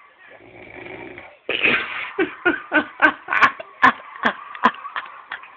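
A sleeping man snoring: a low, rattling snore for about a second, then loud, sharp snorts in quick succession, about three a second.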